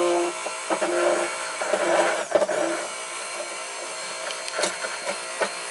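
Cuisinart immersion blender running on low in a plastic blending cup, emulsifying a shallow balsamic vinegar marinade as oil is drizzled in. The whir is louder and uneven for the first three seconds, then quieter, with a few light knocks near the end.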